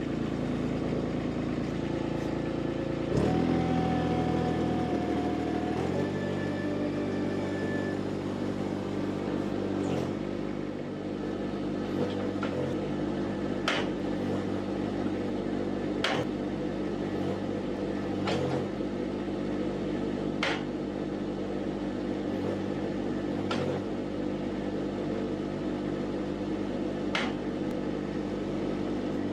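Mini skid steer engine running steadily. A few seconds in, the engine note shifts and a higher whine holds for about three seconds under hydraulic load. From about halfway on come sharp knocks every two to three seconds as the grapple is cycled open and closed, moving fast enough that the owner finds it opens and closes too fast.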